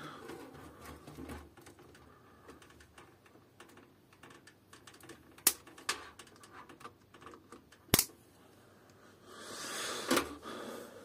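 Scattered light clicks and taps of a motherboard and its cable plugs being handled and unplugged inside a steel PC case, with two sharp clicks about two and a half seconds apart past the middle and a brief rustle near the end.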